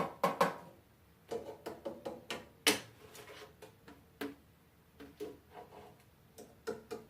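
Irregular small metallic clicks and taps, some with a brief ringing tone, as a magnet is touched to and pulled off the metal parts of a trash compactor to test whether they are steel. The sharpest click comes a little under three seconds in.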